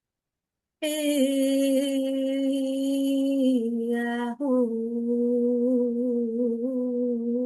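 A woman's voice chanting wordlessly in long held notes, starting about a second in. The first note dips slightly in pitch, there is a short break near the middle, and then a second long note is held steady.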